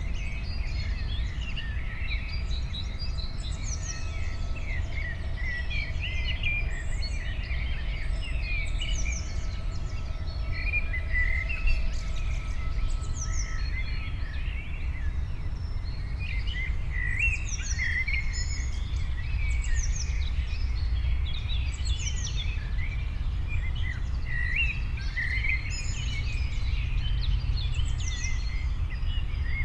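Many small songbirds chirping and singing at once, a dense run of short, quick, mostly downward-sweeping calls, over a steady low rumble.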